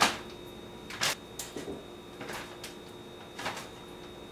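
Raw chicken drumsticks dropped one at a time into a plastic Ziploc bag of dry spices: several short crinkling thuds of meat and plastic, the first and loudest right at the start.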